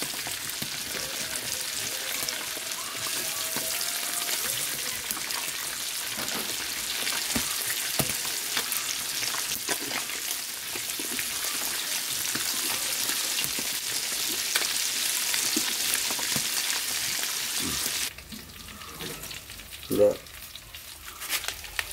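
Marinated snakehead fish frying in shallow oil in a wide aluminium pan: a steady sizzle, with scattered clinks from a spoon basting the fish. About 18 seconds in the sizzle drops much quieter, and one brief loud knock follows a couple of seconds later.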